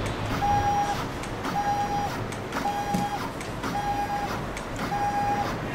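Stepper motors of a 3020 desktop CNC mill jogging the carriage in short moves: a steady pitched whine about half a second long, five times about a second apart, with a faint click as each move starts and stops.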